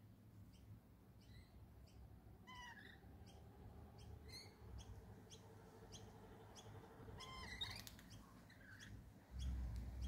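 Faint rainbow lorikeet calls: a few short, bending screeches, clearest about two and a half, four and seven and a half seconds in, over an evenly repeated high chirp. A low rumble starts near the end.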